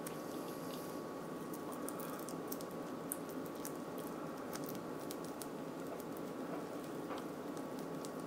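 A basting brush dabbing a thick soybean-based sauce onto a slab of seitan: faint wet squishing and small scattered clicks over steady background noise with a faint constant tone.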